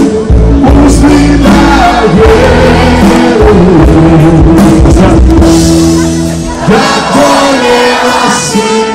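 Live band playing a song on stage: a singer over drum kit and guitar, recorded very loud from the crowd.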